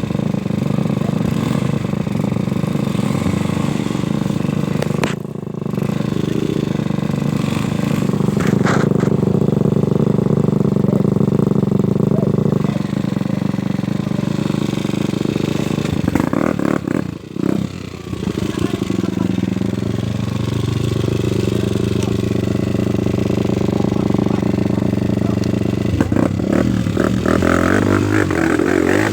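Trail motorcycle engine running steadily. Its sound drops out briefly twice, and near the end the pitch starts to waver as it is revved.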